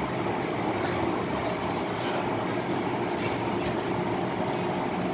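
MTR M-Train heard from inside the carriage, braking as it rolls into a station platform: a steady rumble of wheels and running gear, with a faint high-pitched squeal twice.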